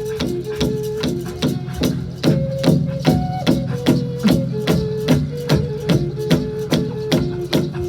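Music with a steady drum beat of about three strikes a second under a held melody line that steps between notes.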